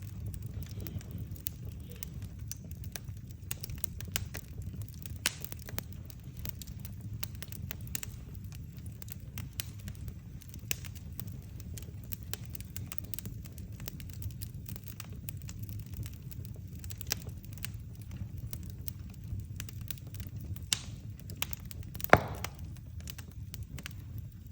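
Burning firewood crackling, with irregular sharp pops and snaps over a steady low rumble. There is one loud pop near the end.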